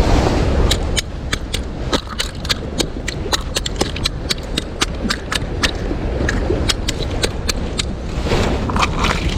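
A quick, irregular run of sharp clicks, several a second, over a steady rumble of wind and surf.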